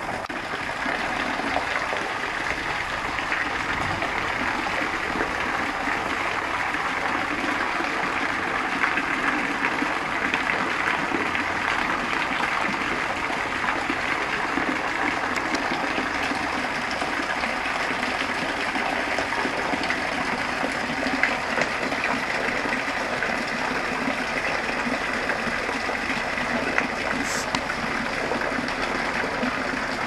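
Thin streams of a small waterfall falling from a height and splashing steadily onto a shallow stone-paved basin.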